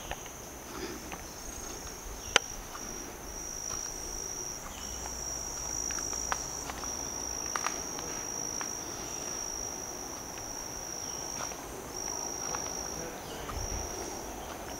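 Insects calling in one continuous high-pitched shrill, with brief breaks now and then. Scattered light clicks and ticks, with one sharp click about two seconds in.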